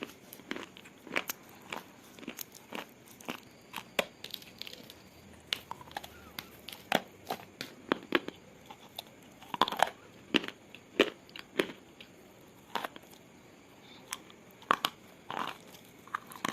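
A person biting and chewing something crunchy: irregular sharp crunches and crackles, one or two a second.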